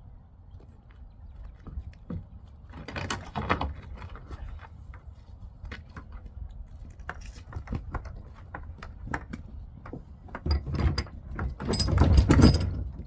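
Knocks, rattles and scraping from loading and securing a kayak on a truck, with a louder burst of clattering near the end.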